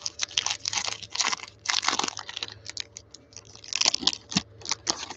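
Foil trading-card pack wrapper crinkling and crackling as it is torn open and the cards pulled out, in quick irregular bursts that stop near the end.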